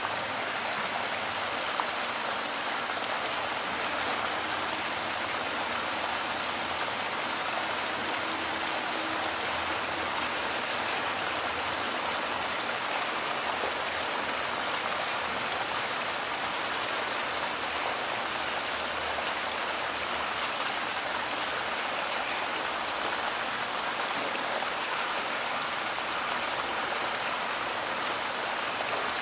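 Steady rushing of flowing water, an even hiss that holds at one level throughout without a break.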